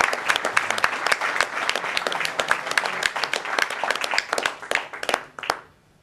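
Audience applauding, thinning out to a few last claps and stopping about five and a half seconds in.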